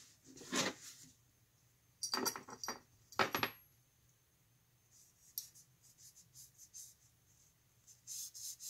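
A few sharp metallic clinks of small metal rifle parts being handled and set down, then a rag rustling as it is rubbed over a part near the end.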